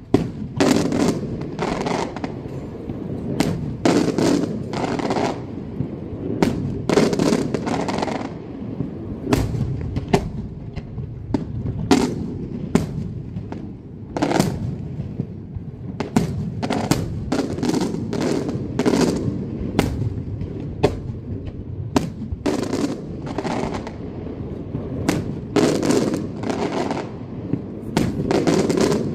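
Daylight aerial fireworks: an irregular run of sharp shell reports, about one or two a second, with a rumbling echo between the bangs.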